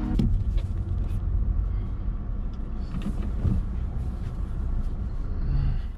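A car driving, giving a steady low rumble of road and engine noise with a few faint clicks.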